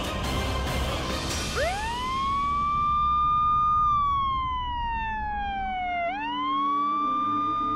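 Police siren wailing: the tone rises sharply about one and a half seconds in, holds high, glides slowly down, then rises again about six seconds in and holds before starting to fall.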